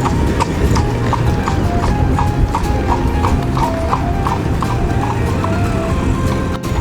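Horse's hooves clip-clopping on pavement at a steady walk, about three strikes a second, over music.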